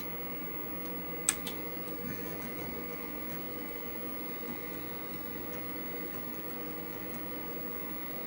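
A single sharp keyboard keystroke about a second in, as the DOS format command is entered, then the steady hum of the vintage IBM PC's fan and drives as it loads the format program.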